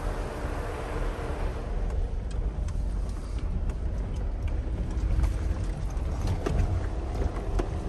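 Jeep Wrangler JL Rubicon driving on a dirt trail: a steady low engine and drivetrain rumble, with scattered clicks and knocks from about two seconds in.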